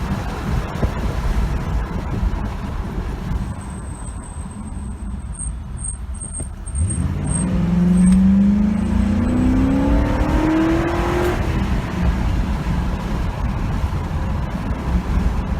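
2007 Ford Crown Victoria's 4.6-litre V8 running, with one smooth rise in engine speed starting about seven seconds in that climbs for about four seconds and then drops off. It is on a test run after its plugs, boots and coil pack were cleaned to cure a cylinder 8 misfire.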